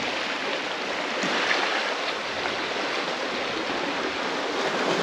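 Small waves washing and swirling among rocks at the water's edge, a steady rushing wash.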